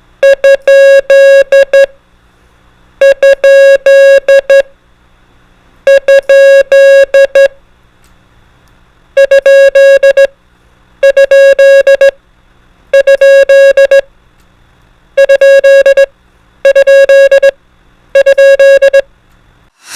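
Morse code sent as a clean electronic beep tone, keyed on and off in dits and dahs. It comes in nine repeated groups: three slower, longer groups, then six shorter groups sent faster and closer together.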